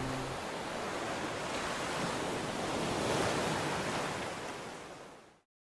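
Sea waves washing onto a shore, an even rushing surf noise that swells slightly in the middle, then fades and cuts off to silence near the end.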